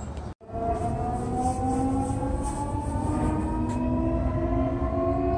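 Nankai Airport Line electric train: low running rumble, broken by a short gap about half a second in, then the train's motor whine, several steady tones over the rumble, rising slowly in pitch.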